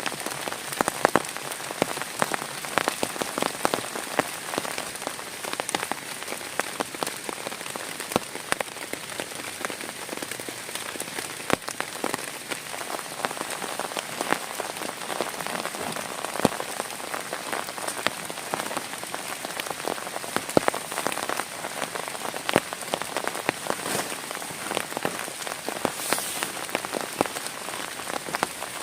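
Heavy rain falling steadily, with a dense run of sharp ticks from individual drops hitting a close surface.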